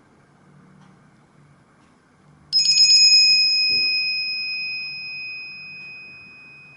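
A Nokia Asha 302 tone: a single bright, bell-like chime that sounds suddenly about two and a half seconds in, then rings on and fades slowly over about four seconds.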